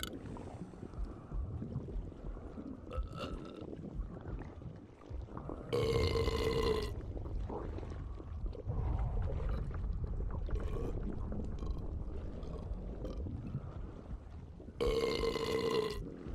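A man belching repeatedly, with two long, loud belches about six and fifteen seconds in and smaller ones between.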